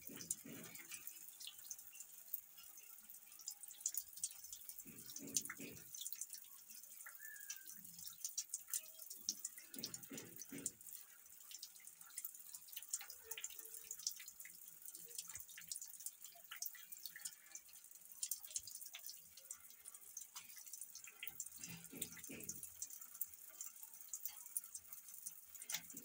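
Faint water dripping in small, irregular ticks, with a few short low sounds about five, ten and twenty-two seconds in.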